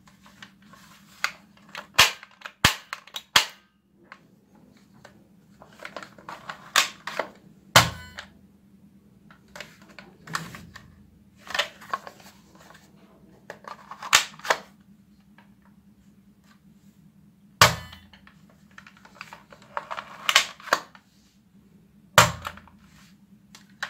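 Plastic clicks and clacks of a toy foam-dart blaster's mechanism being worked by hand: sharp single snaps and short rattling clusters every couple of seconds.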